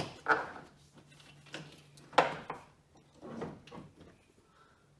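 Several clunks and scrapes of an old car battery and its terminal clamps being worked loose and shifted in the engine bay. The sharpest knock comes a little past two seconds in.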